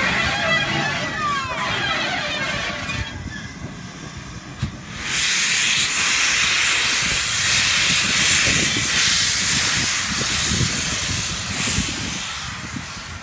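Steam locomotive pulling away with its cylinder drain cocks open. There is a loud hiss of escaping steam, stronger from about five seconds in until it fades near the end, over low, uneven exhaust beats.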